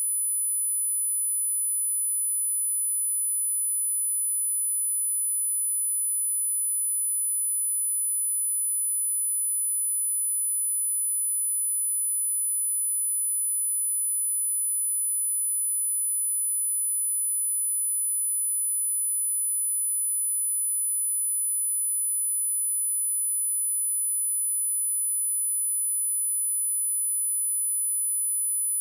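A steady, high-pitched pure sine-wave test tone at 10005 Hz, held at one level without change.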